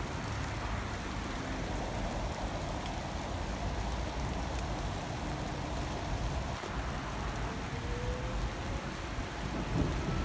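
Electric suburban train approaching slowly, heard as a steady rushing noise over a low rumble, with a faint rising whine near the end.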